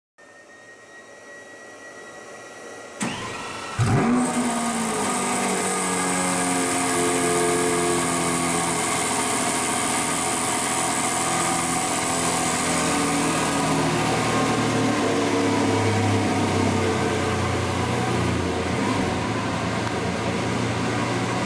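Lamborghini Veneno Roadster's 6.5-litre V12 starting: a click about three seconds in, then the engine catches with a loud rev flare just before four seconds. The revs fall away over the next few seconds and it settles into a steady idle.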